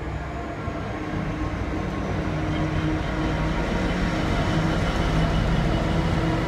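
Class 66 diesel-electric freight locomotive passing close at speed, its two-stroke V12 engine's steady note growing louder as it comes alongside, with the rumble of wheels on the rails.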